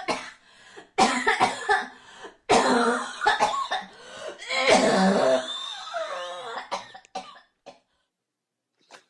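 A person coughing repeatedly in several fits, with throat clearing. The longest fit comes in the middle, and the coughing stops about seven and a half seconds in.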